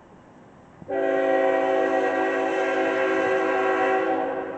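Diesel locomotive air horn sounding one long blast, several notes at once in a steady chord. It starts abruptly about a second in, holds for about three seconds, then fades near the end.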